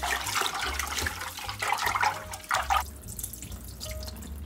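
Glutinous rice being washed by hand in a pressure cooker's inner pot under a running kitchen tap: water splashing and the grains swishing as they are stirred. The sound dies down sharply about three seconds in.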